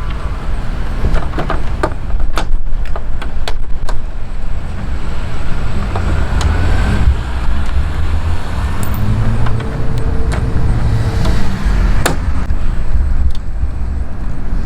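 A steady low rumble of outdoor vehicle-like noise, with sharp plastic clicks and knocks as the Jeep's inner fender liner is pushed back and its tabs popped into place: several in the first few seconds and one loud snap about twelve seconds in.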